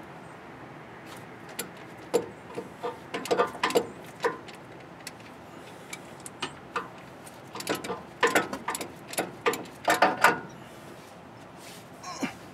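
Socket wrench clicking and clinking against metal while working the alternator's mounting bolts. The clicks come in short irregular clusters with pauses between them.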